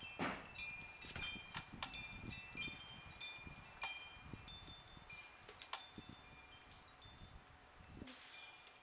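Faint, high metallic tinkling: many short ringing tones at a few fixed pitches, with scattered light clicks and knocks.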